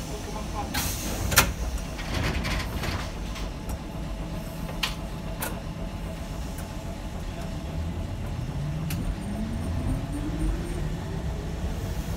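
Hankai Tramway tram running along the track, heard from inside near the front: a steady low rumble with a few sharp clicks, the loudest about a second in. From about eight seconds in, a whine rises steadily in pitch as the traction motors pick up speed.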